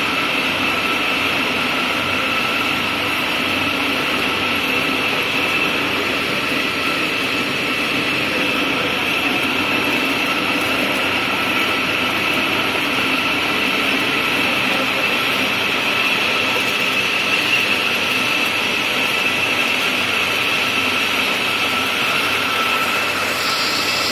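Label die-cutting machine running steadily as the printed label web feeds through its rollers: an even mechanical hum with a constant high whine. A higher rushing hiss joins near the end.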